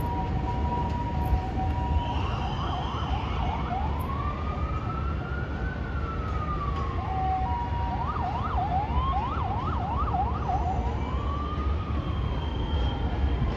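Emergency-vehicle siren cycling through its modes, over a steady low rumble. It starts with a held tone, switches to a fast yelp about two seconds in, then a slow rising and falling wail, another yelp, and a final wail near the end.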